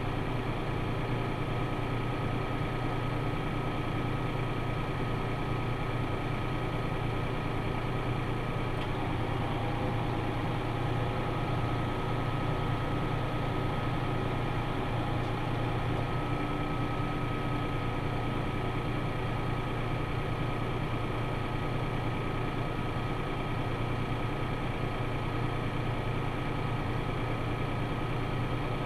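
Farm tractor engine running steadily at idle with a constant low drone and no changes.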